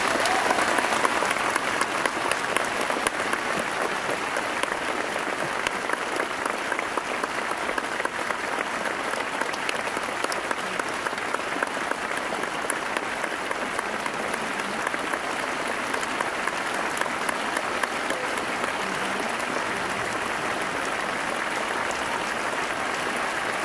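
Large audience applauding steadily, a dense sustained patter of many hands clapping that swells up just as the music ends.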